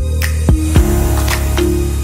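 Background music with a beat: held bass and melody notes under sharp drum hits.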